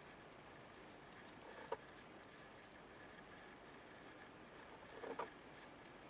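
Faint handling noise of a red 4 mm binding post turned in the fingers: a few small clicks and light rattles of its metal nut and plastic body, the clearest about a second and a half in and about five seconds in.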